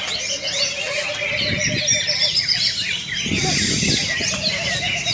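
Several greater green leafbirds (cucak ijo) singing at once, a dense overlapping mix of quick chirps and whistled phrases. Patches of low rumbling noise sit underneath.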